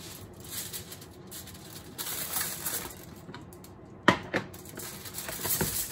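Aluminium foil crinkling as a sheet is pulled out and handled, then torn off against the serrated edge of its box about four seconds in, with a sharp snap and a few smaller clicks.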